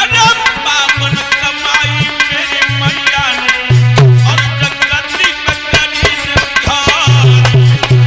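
Instrumental music: hand drums with deep, pitch-bending bass strokes and quick light strokes, under a wavering lead melody.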